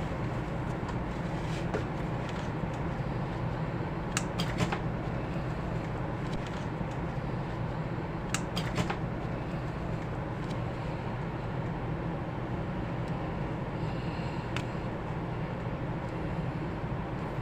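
A few light clicks and taps from electrical wire being handled and fitted at a wall switch's terminal, over a steady low background hum. The clicks come in two pairs, about 4 seconds in and about 8 seconds in.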